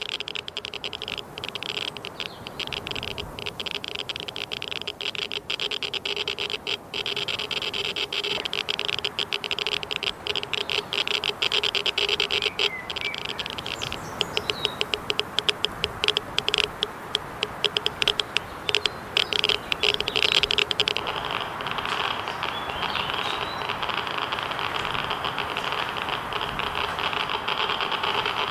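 Handheld Geiger counter crackling with rapid, irregular clicks. The clicks come thicker and faster for several seconds about halfway through, a sign of a stronger radiation reading. A steady drone runs underneath.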